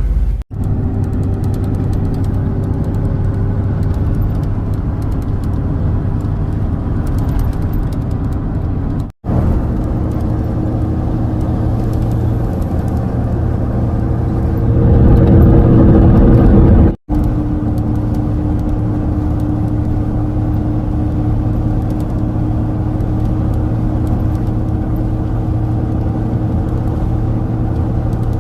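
A motor vehicle driving on the road: steady engine and road rumble. It drops out abruptly twice and grows louder for a couple of seconds about halfway through.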